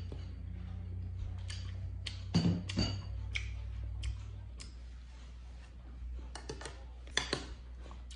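Eating sounds: a metal spoon clinking and scraping in a ceramic dish, with wet chewing and mouth smacks as a watermelon fruit salad is eaten. The sounds come as scattered short clicks in two clusters, a few seconds in and again near the end, over a low steady hum.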